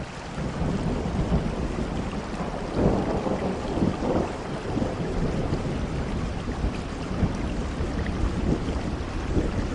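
Rain falling with thunder rumbling, the rumble swelling with crackling surges about three seconds in.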